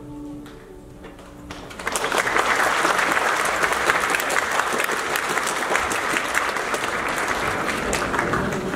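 The tail of music fades out, then a packed audience breaks into sustained applause about two seconds in.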